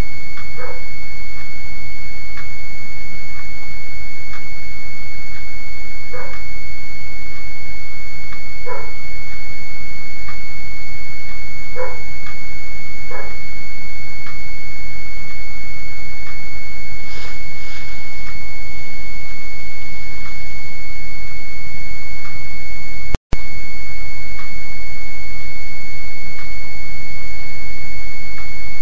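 A loud, steady high-pitched tone with a fainter overtone above it, over heavy rumbling noise, with short faint chirps every few seconds. The sound cuts out for an instant about three-quarters of the way through.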